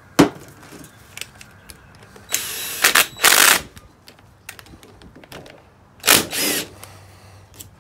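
Cordless drill-driver with a T30 Torx bit running the housing bolts of a Sprinter's high-pressure diesel fuel pump in short bursts, twice about two and a half to three and a half seconds in and again at about six seconds, after a sharp click at the start. It is the six-bolt fix for a pump leaking fuel because its housing bolts work loose.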